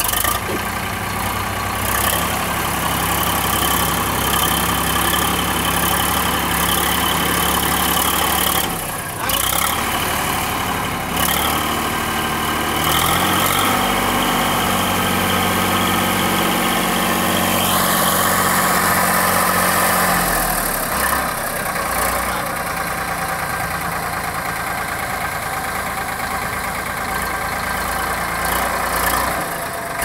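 ACE 550 NG tractor's diesel engine running while it powers a tractor-mounted backhoe digging and dumping soil. The engine note shifts a few times as the digging loads it, with a short rising whine about two-thirds of the way through.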